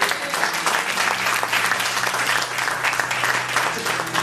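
Congregation applauding: many hands clapping densely and unevenly, over a steady low hum.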